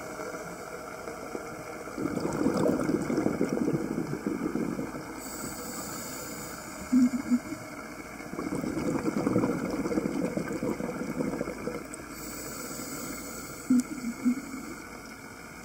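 A scuba diver breathing through an open-circuit regulator underwater. Exhaled bubbles gurgle and rush out in two long bursts about six seconds apart, with a few brief blips between them.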